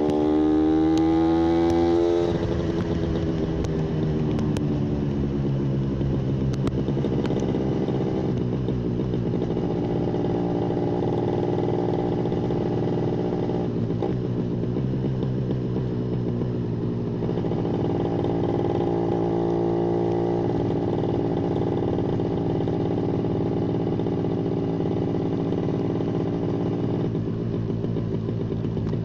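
Yamaha 125ZR's single-cylinder two-stroke engine running under throttle. It revs up over the first couple of seconds, then holds a fairly steady pitch, with short dips about a third of the way in, near the middle and a few seconds later.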